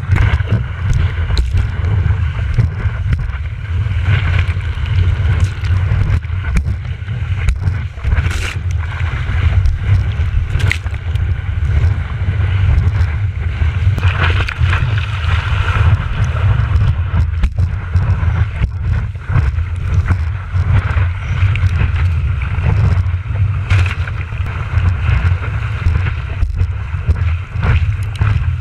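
Wind and water rushing over a surfboard-mounted action camera, heard as a steady low rumble with hiss and scattered splashes, as the board paddles and rides through white water.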